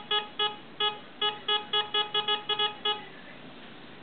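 Metal detector's target-response beeps: a quick run of short, identical beeps at one steady pitch, signalling that a metal target is being detected. They stop about three seconds in.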